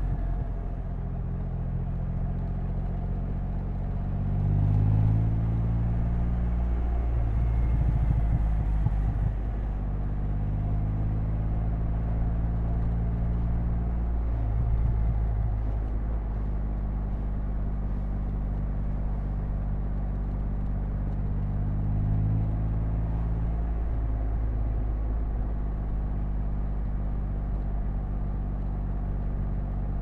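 Triumph Rocket 3's 2.5-litre inline three-cylinder engine and exhaust running under way on the road. The revs climb about four seconds in and again past twenty seconds, dropping back between as it changes gear.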